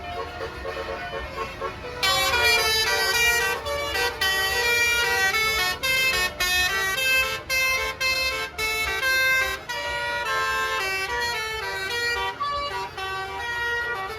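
A bus's basuri telolet horn, a set of musical horn trumpets, playing a tune of short stepped notes that gets loud about two seconds in.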